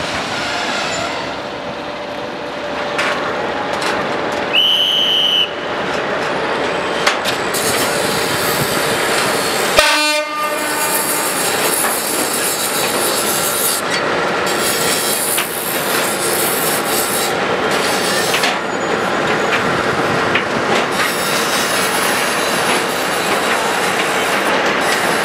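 Regional passenger train approaching through a station, its wheels clattering and hissing on the track. It gives one short, high horn blast about five seconds in.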